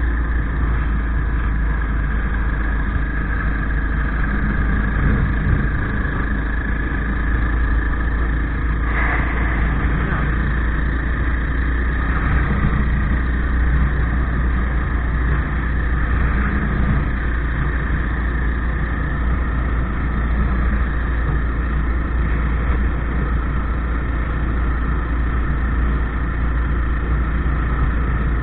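Motorcycle engine running steadily while riding along at road speed, with heavy wind rumble on the bike-mounted microphone.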